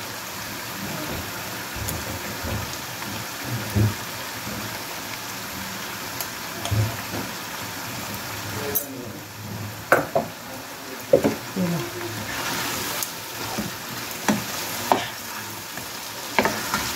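Chicken and onions sizzling in a frying pan while a wooden spoon stirs them. Sharp knocks and scrapes of the spoon against the pan come several times in the second half.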